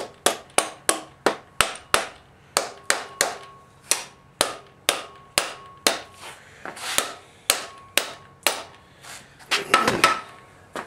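Hammer blows on metal engine parts, about three a second, each with a short metallic ring, and a louder clattering rattle near the end.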